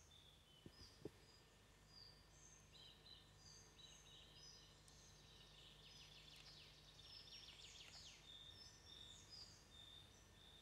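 Faint birdsong: many short high chirps and whistles, with a burst of quick trills in the second half, over a low steady hum. Two soft clicks about a second in.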